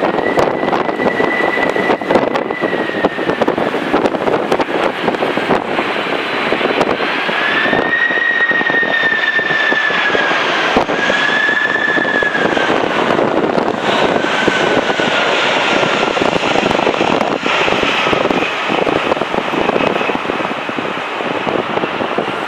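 Boeing 767-300ER's twin General Electric CF6-80C2 turbofans whining on final approach as the airliner flies close past; the whine slides lower in the second half as it goes by. Heavy gusting wind noise on the microphone runs under it.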